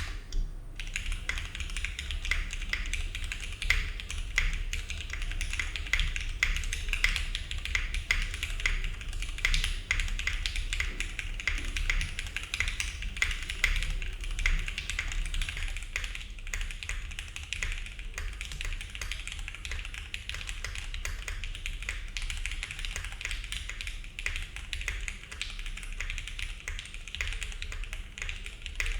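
Continuous, rapid typing on a Neo70 mechanical keyboard in gasket mount, fitted with Cherry MX Black linear switches: dense clacking keystrokes with no pauses.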